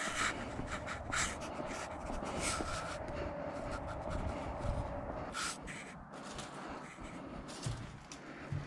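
Footsteps and close breathing of a person moving on foot, with short crunching or scuffing knocks throughout. Under them a steady drone runs and stops about five seconds in.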